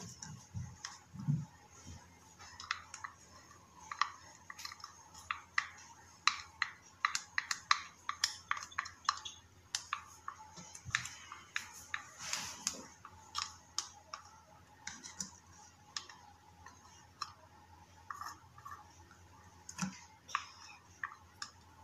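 Wooden craft stick scraping thick white PVA glue out of a plastic measuring beaker: irregular short scrapes and clicks of stick on plastic, bunched thickest in the middle.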